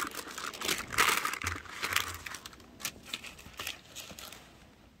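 Thin paper and plastic packaging crinkling as it is handled, in irregular crackly bursts that are loudest a second or two in and die away near the end.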